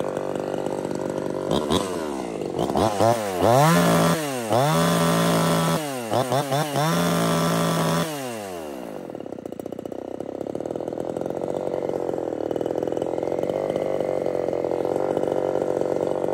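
Chinese clone of a Zenoah/RedMax G2500 25cc two-stroke top-handle chainsaw, muffler opened up, idling, then revved hard several times with quick throttle blips between about 2 and 8 seconds in, dropping back to a steady idle each time and settling there. The steady idle is the sign, as the owner believes, that sealing an intake air leak has cured its long-standing idle problem.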